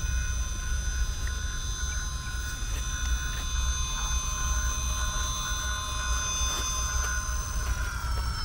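Electric motor and drivetrain of an RC rock crawler whining steadily as it crawls slowly up rock, over a low rumble; the whine sags slightly in pitch near the end.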